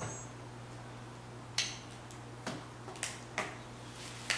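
A handful of short, sharp clicks and light knocks as a small video camera is handled, unclipped from its mount and set down on a steel welding table, over a steady low hum.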